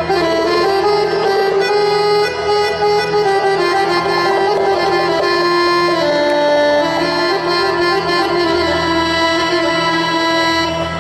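Instrumental traditional music: a reedy, sustained melody moving over a steady low drone.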